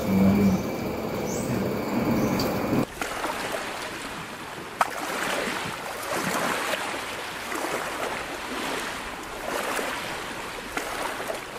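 Rushing water, an even hiss that swells and eases every second or two, coming in suddenly about three seconds in after a short stretch of muffled room ambience.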